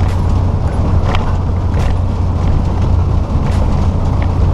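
Steady low drone of a tractor-trailer's engine and tyres on a wet road, heard inside the cab, with a few faint clicks here and there.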